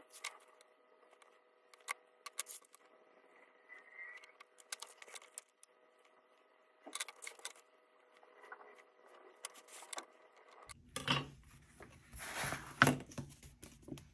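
Sped-up light clicks and taps of a pencil and grey book board being handled on a cutting mat, over a faint steady hum. About eleven seconds in it turns to louder rustling and knocking as the boards are moved and laid out.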